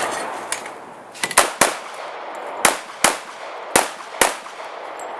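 Pistol shots fired in three quick pairs, six shots in all, each crack followed by a short echo.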